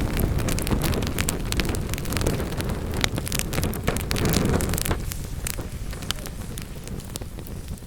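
Wood fire burning in a fireplace: a low rushing rumble of the flames with many sharp crackles and pops from the burning logs. The rumble eases about five seconds in while the crackling keeps on.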